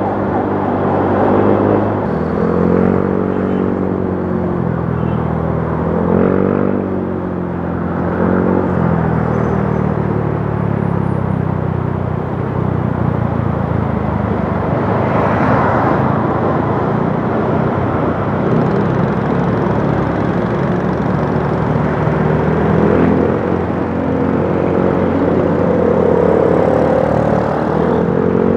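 Motorcycle engine running while riding in traffic, its pitch rising and falling with the throttle several times, over a steady rush of wind and road noise.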